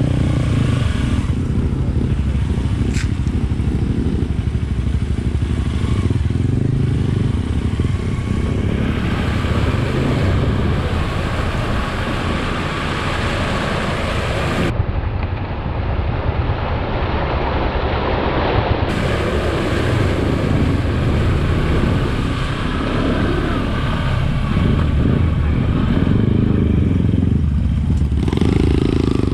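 Adventure motorcycle being ridden, its engine running steadily under a rush of wind and road noise.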